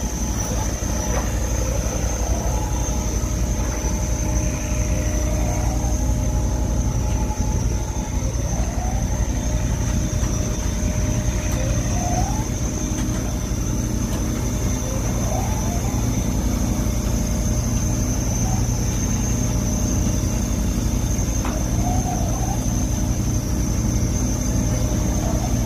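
Steady, loud drone of a purse seiner's engine and deck machinery, with a thin high whine held throughout and short squeals now and then.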